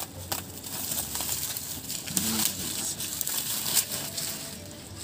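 Bubble wrap and plastic packing crinkling and rustling as they are handled and pulled at on a cardboard parcel, with scattered sharp crackles.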